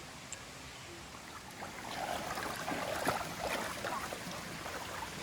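Stream water running, growing louder about two seconds in.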